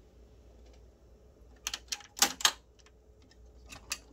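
Sharp mechanical clicks and clunks of a Curtis Mathes HK510 cassette deck's piano-key transport buttons being pressed and latching: a cluster of four about two seconds in, then a few lighter clicks near the end.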